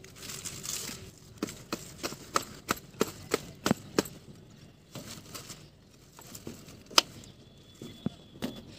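A knife cutting through a bottle gourd's vine stem among its leaves: a run of sharp clicks, about three a second, from about a second and a half in, then one loud click near the end of the run's pause and a few more near the end, over a light rustle of leaves.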